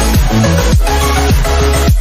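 Loud electronic dance music with a steady beat and deep bass drum hits that drop quickly in pitch.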